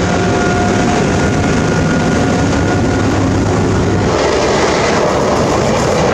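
A train passing close by: a loud, steady rumble of wheels on track with a faint whine in the first half.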